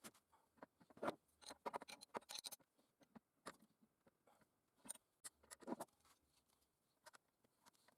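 Faint handling noises: scattered light clicks, taps and short scrapes of small hard objects being moved about, in two clusters with a quieter gap between them.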